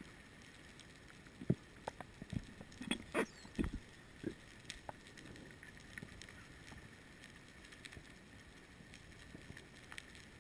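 Faint underwater ambience heard through a submerged camera: a steady low hiss, with a cluster of sharp knocks and clicks between about a second and a half and four and a half seconds in, and a few faint ticks after.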